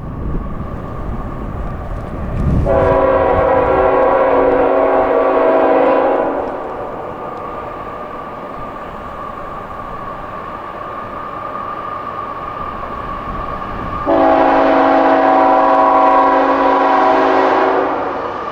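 Diesel freight locomotive's multi-chime air horn sounding two long blasts, the first about three seconds in and the second near the end, each lasting over three seconds, over the noise of the approaching train's engine. A steady high tone runs underneath throughout.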